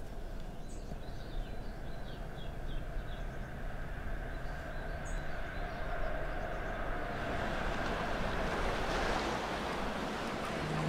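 Steady outdoor ambience of low rumbling noise that swells louder and hissier in the second half into a wash of wind and waves, with a few faint chirps early on.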